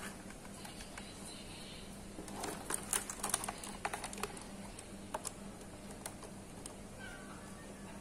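Plastic clicks and knocks of a 1/10-scale RC truck being handled and turned over in the hands, with a busier cluster of clicks about two and a half to three and a half seconds in.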